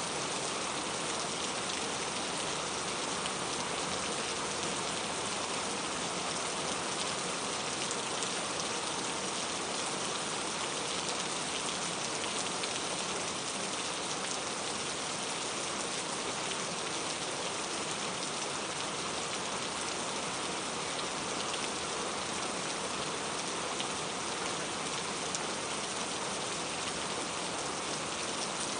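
Steady rain falling and pattering on surfaces, an even hiss with faint scattered drop ticks and no change in intensity.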